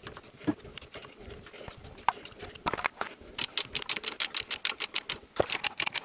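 Ratchet wrench clicking on a socket extension as the loosened engine mount bracket nuts are run off. A few scattered metallic clicks at first, then from about three and a half seconds in a fast, even run of clicks at about ten a second.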